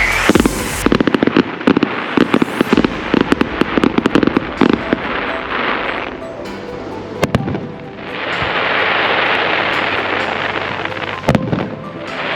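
Fireworks display: a rapid run of sharp cracks and bangs for about five seconds, a single bang a couple of seconds later, then a long steady crackling hiss with one more bang near the end.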